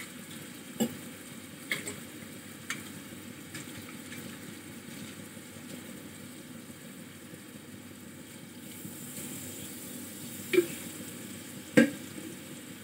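Pointed gourds (potol) cooking in a steel pan on high gas with spices and a little water, a steady low sizzle. A few sharp clinks of a utensil come through it, the loudest near the end.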